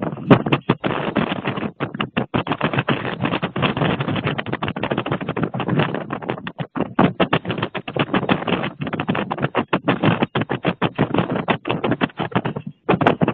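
Storm wind buffeting the microphone: a loud, rough crackling noise that keeps cutting out for a moment and coming back.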